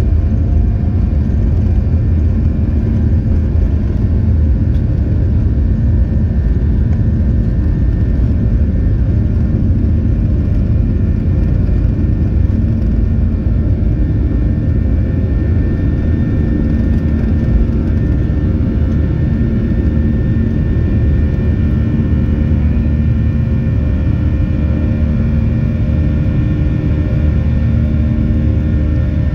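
Boeing 737's jet engines at takeoff thrust, heard from inside the cabin: a steady, loud roar with a deep rumble and steady whining tones over it, through the takeoff roll and into the climb after liftoff.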